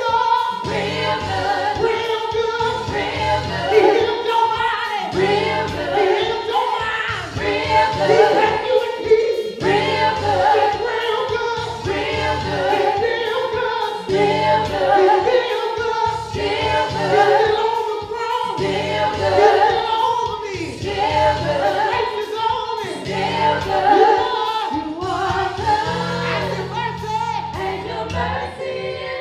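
Gospel praise team of male and female voices singing together into microphones, over a steady low instrumental accompaniment that changes chord every couple of seconds.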